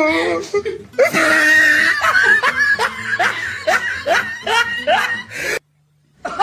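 A person laughing in a run of short, rising bursts, about two a second, which breaks off suddenly near the end.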